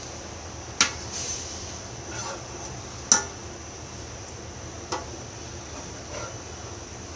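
A spoon knocking against a basin: three sharp clinks a couple of seconds apart, with softer scraping or rattling between, over a steady faint hiss.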